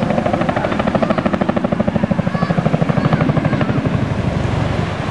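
Boeing CH-47 Chinook's tandem rotors beating in a fast, even rhythm of about ten pulses a second, easing off near the end.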